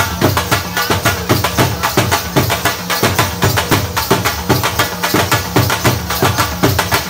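Dhols beaten in the fast, driving Qalandri dhamal rhythm, about four to five strong beats a second with deep bass strokes.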